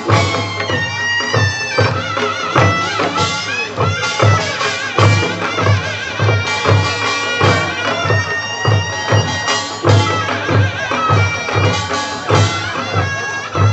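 Korean traditional folk music played live: a reedy wind instrument plays a wavering, ornamented melody over a steady drumbeat of about two strokes a second.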